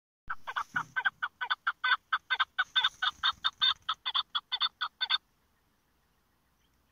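A chukar partridge calling: a rapid series of loud clucking notes, about five a second, that stops suddenly about five seconds in.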